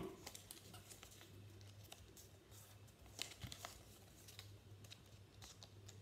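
Faint rustling and creasing of a sheet of paper being folded by hand, with scattered soft crinkles over a low steady hum.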